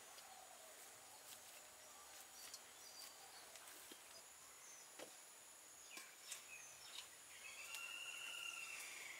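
Near silence: faint rural outdoor ambience with a few soft clicks and faint whistled bird calls near the end.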